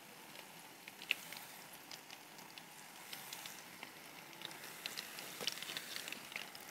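Meatballs and garlic frying in hot oil in a clay tajine: a faint, steady sizzle with scattered small crackles and pops.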